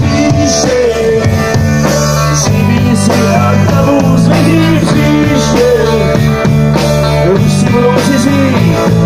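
Live rock band playing loud: electric guitars, bass guitar and drum kit, with a voice singing over them.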